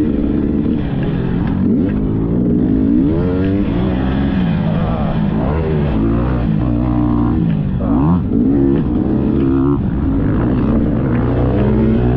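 Dirt bike engine running hard, its pitch rising and falling again and again as the throttle is opened and closed.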